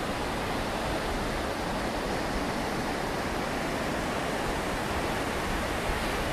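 Steady rushing noise of sea surf breaking on the shore, even throughout with no distinct events.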